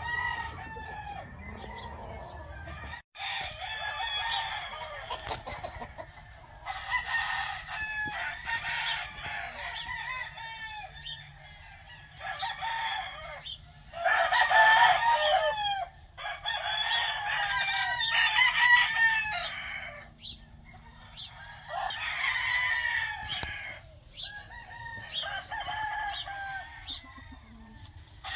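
Several gamefowl roosters crowing in overlapping bouts, one call after another, loudest in the middle.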